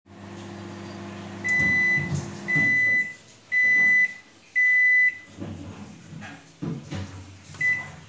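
LG Intellocook microwave oven humming through the last seconds of its cooking cycle, then falling quiet as it finishes, with four end-of-cycle beeps about a second apart. A few clicks and knocks follow, with one short beep near the end.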